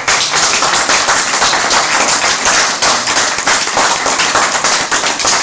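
Audience applauding: a loud clatter of many hands clapping, starting suddenly and keeping up steadily.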